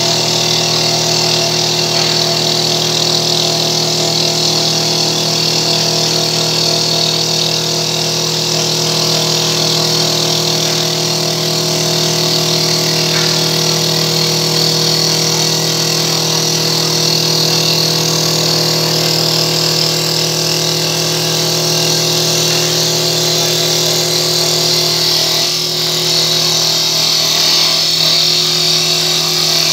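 Woodmaster CNC wood lathe running as its motor-driven cutter head turns a wooden spindle: a steady motor hum under a constant hiss of cutting.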